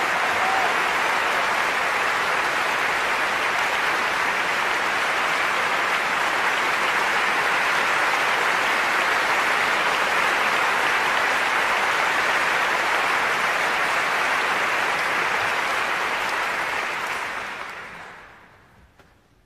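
Large concert-hall audience applauding steadily, a dense even clatter of many hands; the applause dies away near the end.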